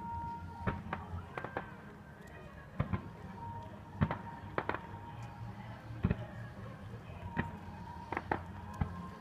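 Fireworks display: shells bursting in sharp bangs and pops at irregular intervals, the loudest about four and six seconds in.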